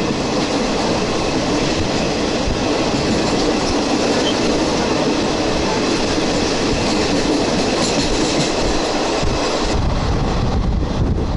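Indian passenger train running along the line: the steady noise of the coach's wheels on the rails, heard through the open coach doorway.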